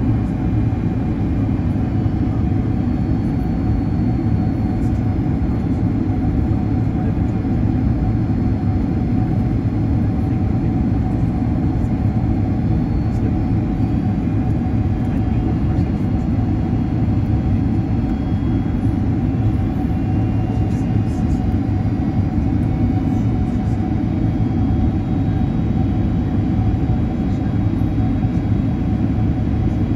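Steady cabin noise of a Boeing 767-300 jet airliner in descent: a low engine and airflow rumble with a thin, steady whine above it.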